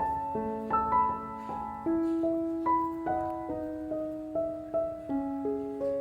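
Background music: a gentle piano melody playing soft, evenly spaced notes.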